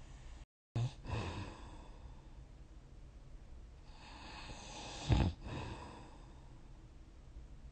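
A person snoring in sleep. The sound cuts out for a moment near the start, then comes back with a short snore and breath. A slowly building breath ends in one loud snore about five seconds in.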